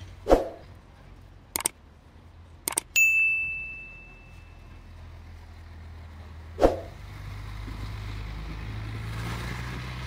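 Street sounds: a few sharp knocks, then a single bell-like ding about three seconds in that rings out for a second or so. In the second half, a city bus's engine rumble builds as it passes close by.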